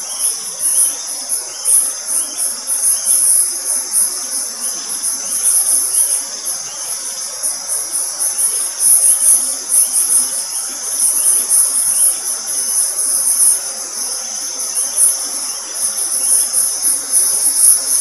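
A loud chorus of forest insects chirring: a high, shrill, pulsing trill over a steadier high hiss that carries on without a break.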